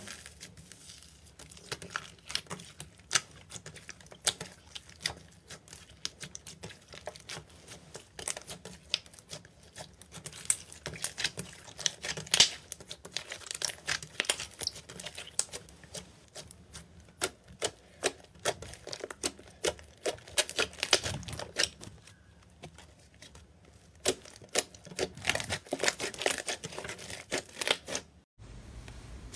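Hands pressing and kneading butter slime covered with gold foil: a dense, uneven run of small sharp crackles and pops.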